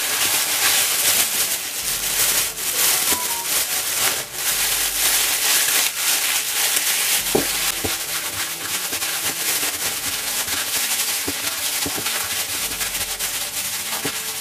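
Thin plastic bag crinkling and rustling as hands knead raw chicken pieces inside it, a dense crackle of many small sharp ticks.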